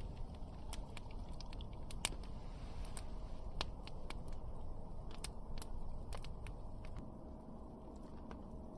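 Campfire crackling, with irregular sharp pops and snaps scattered over a steady low noise.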